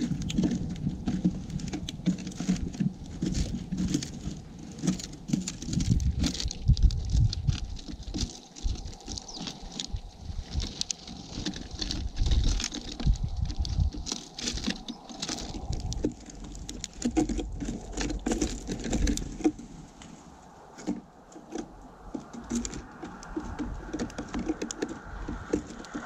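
House sparrows pecking and shuffling in the seed of a wooden platform feeder right by the microphone: a dense, irregular patter of small clicks and taps from beaks and feet on sunflower seed and corn.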